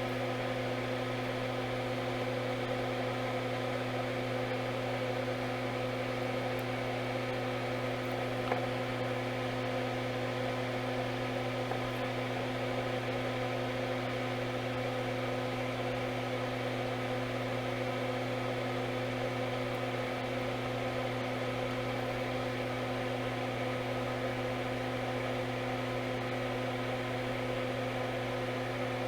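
Steady electrical hum from powered workbench equipment, with one faint click about eight and a half seconds in.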